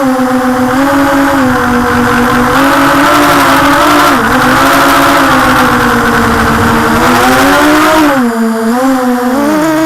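Storm SRD250 V3 racing quadcopter's motors and propellers whining in flight, the pitch steady, dipping briefly about four seconds in, then falling and wavering with throttle changes near the end.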